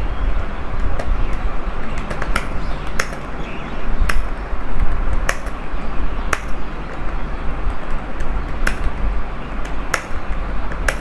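Computer keyboard typing: keystrokes clacking irregularly, with a sharper loud key hit about once a second and fainter ones between, over a steady low hum.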